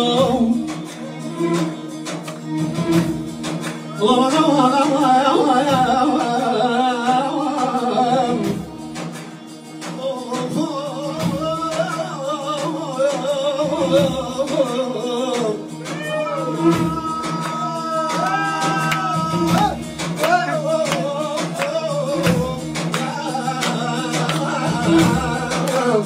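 Tallava song performed live: a man singing into a microphone in long, wavering, ornamented phrases over instrumental backing that holds steady notes underneath.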